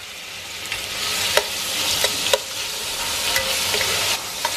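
Cubes of pork belly sizzling in hot grapeseed oil in a stainless steel pan, stirred with a slotted spatula that clicks sharply against the pan a few times.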